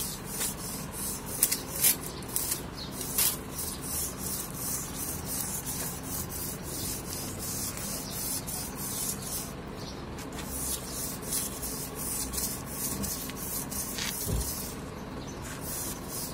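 Small wire brush scrubbing back and forth over a rough concrete wall top in quick, repeated scraping strokes, with a few harder strokes about two seconds in. The scrubbing takes off mould and dirt so that the limewash will grip.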